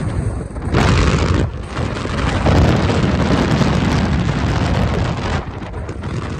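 Strong wind buffeting the microphone in gusts: a loud, deep rumbling rush that surges about a second in, eases briefly, then swells again for a few seconds before dropping back near the end.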